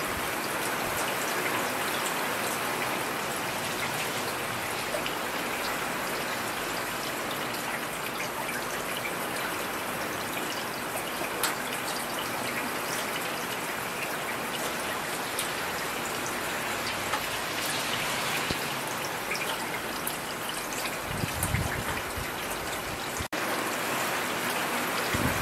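Heavy rain falling steadily, a dense, even hiss of drops. A brief low rumble rises out of it about four seconds before the end.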